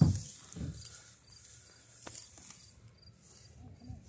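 A short high chirp repeating evenly, about twice a second, like an insect calling. Under it runs a low rumble of wind on the microphone, with a thump right at the start.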